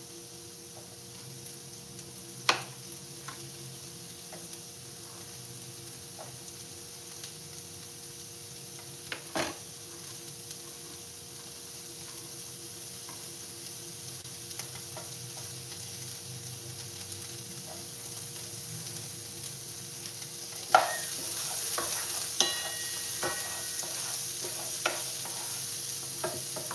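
Chopped red bell pepper and shallot sizzling as they sauté in a nonstick frying pan and are stirred, with a few sharp clicks of the utensil against the pan. The sizzle grows gradually and steps up louder about three-quarters of the way through.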